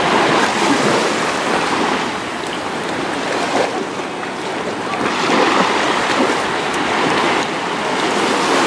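Sea water sloshing and splashing right against a camera dipping in and out of the surface in shallow water: a loud, continuous rush that swells near the start and again about halfway through.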